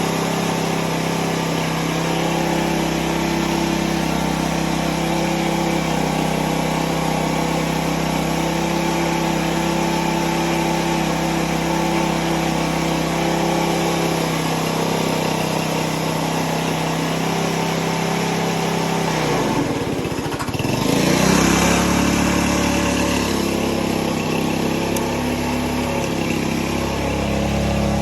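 Small gas engine of a 2.5 gallon-per-minute pressure washer running steadily. About 20 seconds in its pitch sags briefly and recovers, with a few seconds of hissing noise over it.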